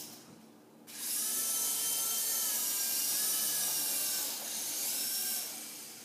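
Kingco RC helicopter's electric motor and rotor whirring, starting about a second in with a whine that wavers a little in pitch, then fading near the end.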